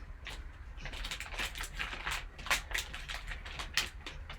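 Card pack wrapper crinkling and crackling as it is handled and opened, an irregular run of quick rustles.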